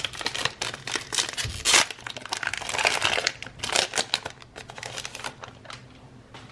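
Plastic wrapper of a trading-card pack crinkling as it is handled and torn open: a dense run of irregular crackles that thins out and dies down near the end.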